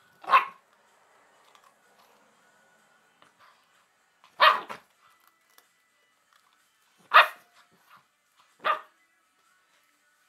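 Rottweiler puppy giving four short, sharp barks a few seconds apart while guarding its food.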